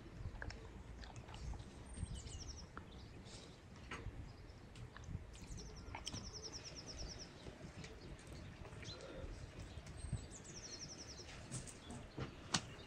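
A small songbird singing three times, each a high, quick run of repeated notes that falls in pitch, about four seconds apart. Scattered light clicks and a low steady rumble run underneath.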